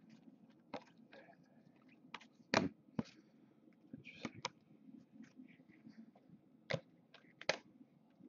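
2014 Topps Chrome football cards being handled, flipped and laid on stacks: a scatter of quiet sharp clicks and taps, the loudest about two and a half seconds in.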